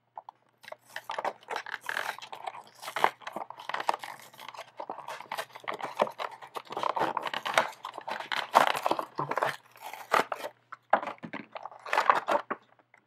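Crinkling and tearing of toy packaging as a figurine package is opened by hand: a dense, irregular run of crackles and rustles with a few short pauses.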